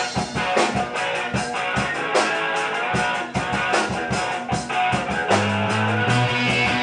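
Rock band playing live: electric guitars and drums kick in together and drive on with regular drum hits. About five seconds in, a low bass-guitar line becomes prominent with long held notes.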